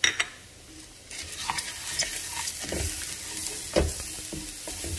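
A wooden spoon stirs and scrapes long-grain rice and diced onion toasting in hot oil in an enamelled pot, with a steady sizzle. There are two sharp knocks right at the start, and the stirring and sizzling pick up about a second in.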